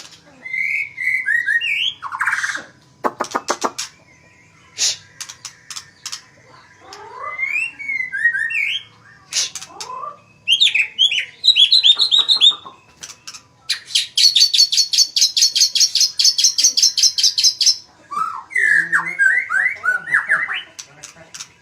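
White-rumped shama (murai batu) singing a varied song: slurred whistled notes broken by sharp clicking notes, with a long, very fast high trill lasting about four seconds in the middle.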